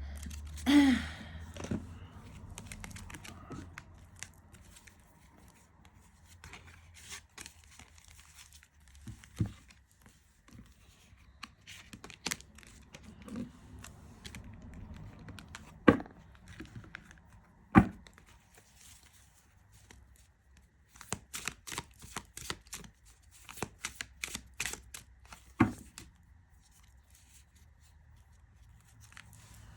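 Hands handling a tarot deck and its cardboard box: rustling, light tearing and crinkling, with scattered sharp clicks and taps and a quick run of clicks about two-thirds of the way through.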